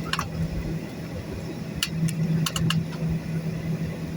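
Airliner cabin noise before takeoff: a steady low hum over engine and air rumble, heard from inside the cabin. Several short, sharp clicks or rattles cut through it, one near the start and a quick group of about four about two seconds in.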